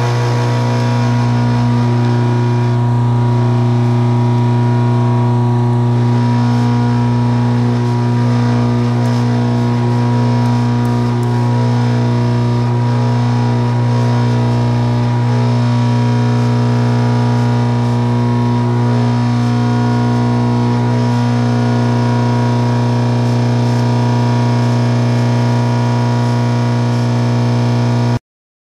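Steady hum of a running milling machine motor: a strong low tone with several steady higher tones and a noisy hiss over it, unchanging until it cuts off suddenly near the end.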